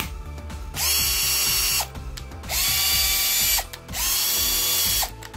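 Keyang DD-1442P 14.4 V cordless drill driver motor spinning up, running about a second at steady speed and spinning down, three times, with a fourth run starting at the very end. This is a test run on the freshly rebuilt battery pack.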